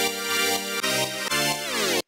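Background music with sustained, electronic-sounding chords that change twice and cut off abruptly at the end.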